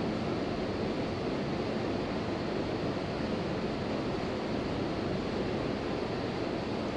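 Steady rushing background noise, even in level throughout, with no distinct clicks or knocks.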